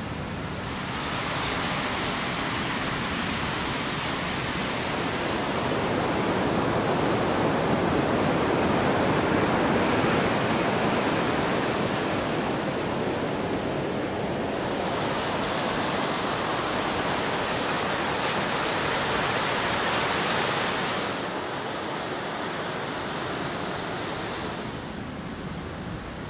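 Ocean surf: a steady rush of breaking waves that swells and eases over several seconds at a time.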